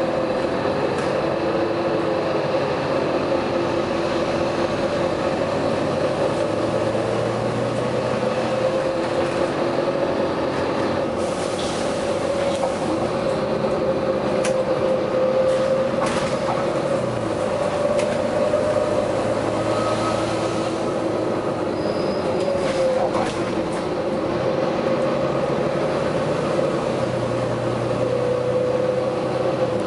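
A steady mechanical running noise with a strong wavering hum and a few sharp clicks partway through.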